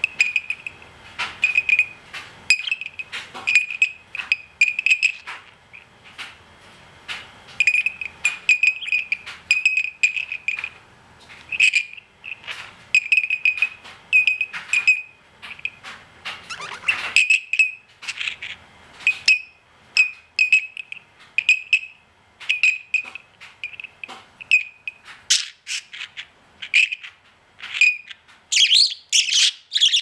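Budgerigar imitating a ringing bell: runs of short, high beeps at one pitch, several a second, broken by short pauses, with a few warbling chirps mixed in and more of them near the end.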